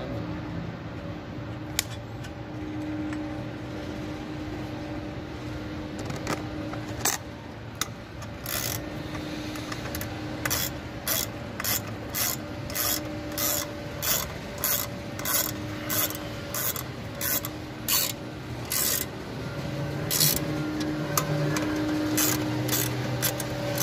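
A small ratchet wrench tightening a cover bolt on a manual chain block, its pawl clicking on each return stroke. The strokes come in a steady run of about two a second for some ten seconds, then a few more near the end.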